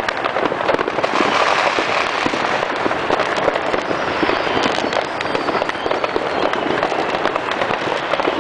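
Many fireworks and firecrackers going off at once: a dense, continuous crackle of pops and bangs, with a few faint whistles.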